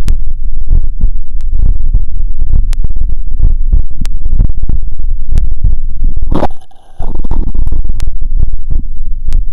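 Heartbeat heard through an electronic stethoscope: low thuds buried in heavy rubbing and contact noise, with sharp clicks about every second and a quarter. About six and a half seconds in, the sound cuts out for half a second after a brief scrape.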